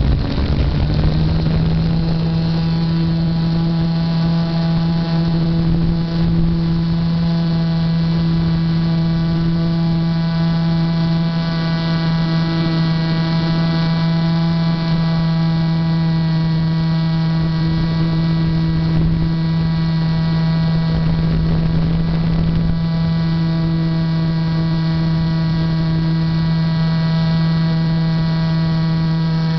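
Motor and propeller of a Titan J3 RC model airplane, heard close up from the onboard camera. The drone rises in pitch over the first second or so as the plane leaves the ground, then holds one steady pitch through the climb.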